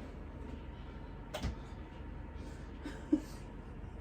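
Electric kettle heating with a low steady hum; a single sharp click sounds about a second and a half in.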